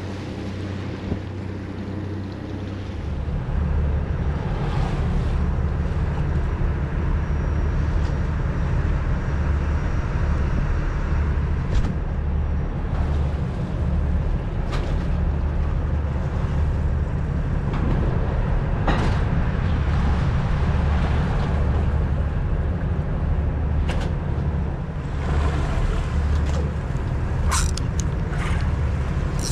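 Boat engine running steadily underway, a low drone that gets louder about three seconds in, with wind and water rush and a few short knocks.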